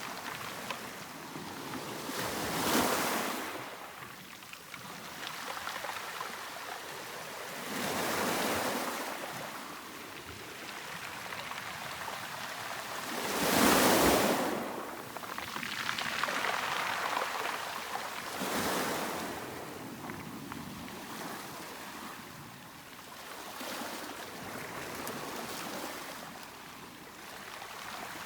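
Sea waves washing in one after another, each swelling up and ebbing away every few seconds, the loudest about halfway through.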